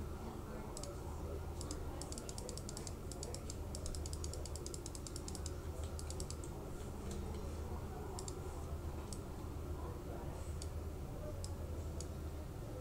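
Clicking of a computer keyboard and mouse, in quick runs of about eight to ten clicks a second for a few seconds, then single clicks spaced out, over a steady low hum.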